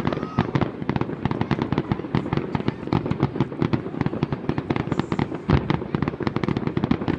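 Aerial fireworks bursting in a dense, continuous barrage of rapid pops and crackles, many a second, over a steady rumble, with one heavier boom about five and a half seconds in.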